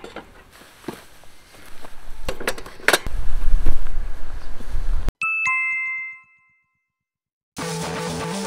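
Clicks and knocks of camping gear being set on a metal-framed rack, over a low rumble that grows loud for a couple of seconds. About five seconds in, a bright two-note chime sounds, falling from the first note to the second. A moment of silence follows, then guitar-backed background music starts near the end.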